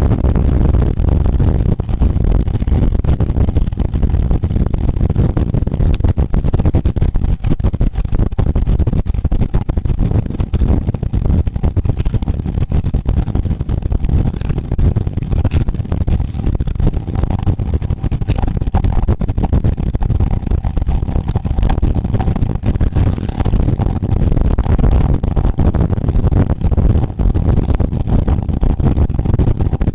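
Wind buffeting the microphone of a camera riding on a road bike at race speed: a loud, gusty low rumble that never lets up.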